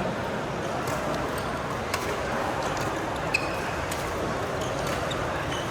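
Badminton rally: a string of sharp clicks from rackets striking the shuttlecock, roughly every half second to second, over a steady hall hum.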